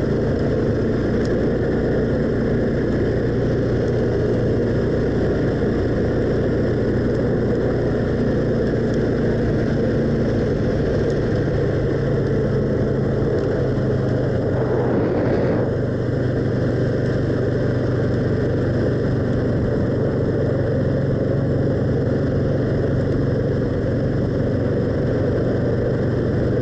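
ATV engine running at a steady speed while riding, with no revving or pauses.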